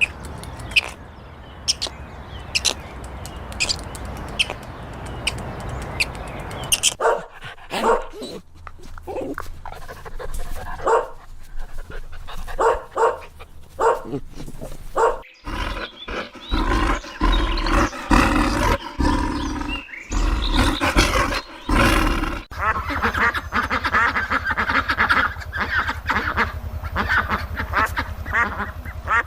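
Dog barking repeatedly, in short separate barks.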